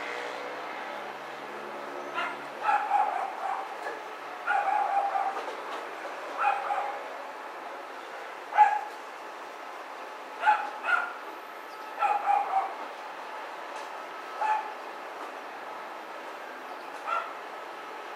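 A dog barking in short, pitched yaps, about a dozen spaced irregularly every second or two, over a steady background hiss.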